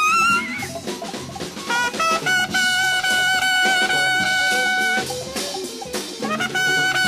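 Jazz ensemble with horns and drums playing, from a restored reel-to-reel studio tape. A wavering note bends upward at the start, then a long steady high note is held from about two seconds in, broken off near five seconds and taken up again near the end, over busy drumming.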